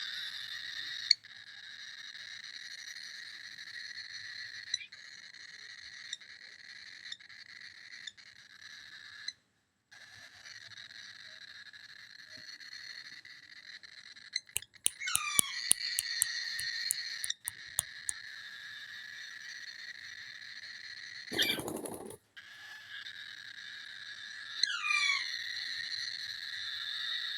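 Baby cockatiels making a steady, continuous call, the 'horrible sounds' of the chicks, broken by a short pause about nine seconds in. Two short falling calls stand out near fifteen and twenty-five seconds, with a run of sharp clicks around fifteen seconds and a brief loud noise a little after twenty-one seconds.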